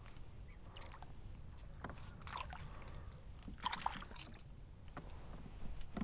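Faint water sloshing, with two short splashes about two and four seconds in, as a hooked bass is brought to the surface beside a kayak.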